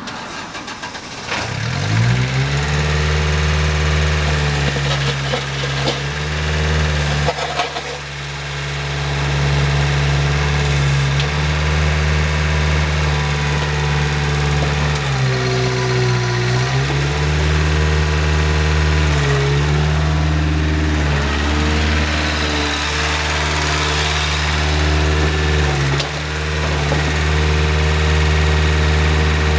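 Hitachi EX-02 mini excavator's four-cylinder 1.5-litre Kubota diesel starting about a second in, then running steadily with its pitch dipping briefly several times as the hydraulics take load while the boom and bucket are worked.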